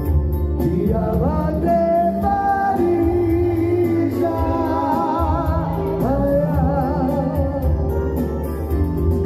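A man singing live into a handheld microphone over electronic keyboard accompaniment with a steady beat. The melody slides up into long held notes with vibrato, and the voice drops out near the end while the keyboard plays on.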